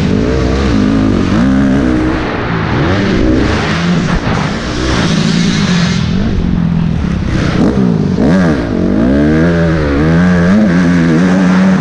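Motocross bike engine revving hard and easing off again and again under racing throttle, its pitch rising and falling every second or two. Other bikes can be heard running on the track as well.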